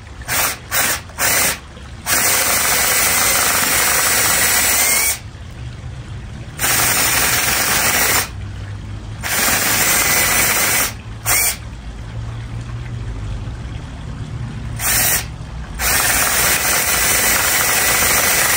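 Cordless drill boring into an aspen log round with a 7/8-inch paddle bit: a few short trigger blips at first, then several long runs of drilling with brief pauses between them. Near the end of some runs the motor's whine rises briefly.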